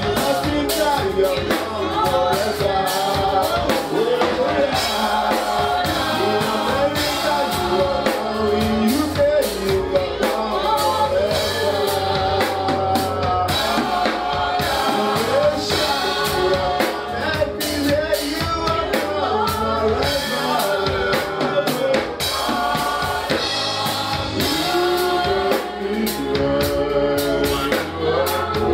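Live gospel worship song: singers and congregation singing together over a band with drums.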